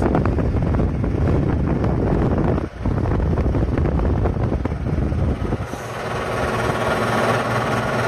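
A 1971 Westinghouse air conditioner running: its condenser fan and compressor make a loud, steady rushing drone. The drone briefly dips a little before the halfway point. About five and a half seconds in, the deep rumble thins out and a higher, hissier rush of air takes over.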